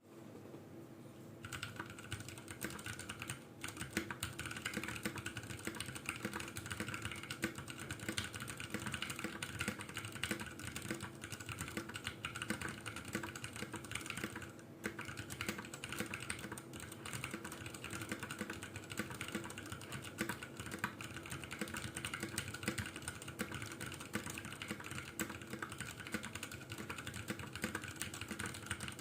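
Continuous typing on a Ducky Mecha Mini mechanical keyboard with stock Cherry MX Brown switches, PBT keycaps and an aluminium case, a dense run of key clacks. The typing starts about a second and a half in and pauses briefly twice, once a few seconds in and once about halfway.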